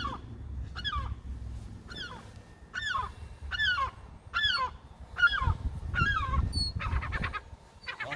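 A distressed bird calling over and over in short piercing cries that each slide down in pitch, a little under one a second, ending in a quicker fluttering call near the end.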